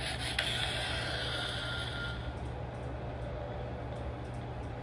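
Lightsaber hilt's built-in speaker playing its sound-font effects: a hiss that fades out about two seconds in, over a steady low hum.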